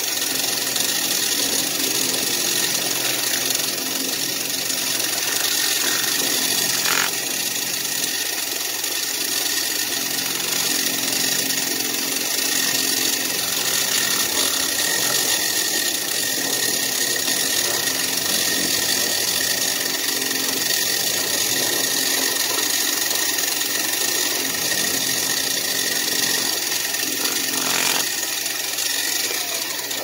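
Milling machine spindle running while a single-tooth end mill, ground down from a three-flute cutter, cuts the edge of a metal intake adaptor, fed by hand. The sound is a steady machining whine with several fixed tones, with a brief click about seven seconds in and another near the end.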